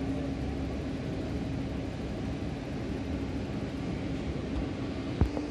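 Steady hangar room tone: an even noise with a constant low hum, and one sharp knock about five seconds in.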